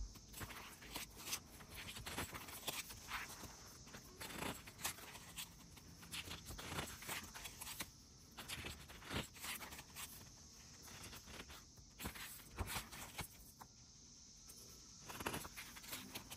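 Pages of a photo book being turned and handled: faint paper rustles with scattered light taps and clicks of long fingernails on the paper.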